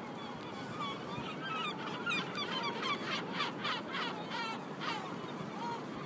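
A flock of gulls calling, many short overlapping squawks that start about a second and a half in and are thickest between three and five seconds, over a steady hiss.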